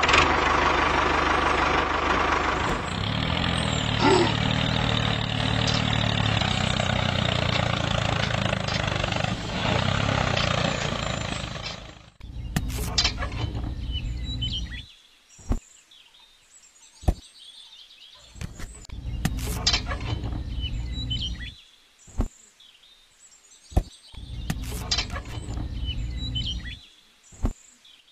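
A motor runs with a steady mechanical hum for about twelve seconds. After that it comes in three short bursts of two to three seconds each, with sharp clicks in between and birds chirping faintly.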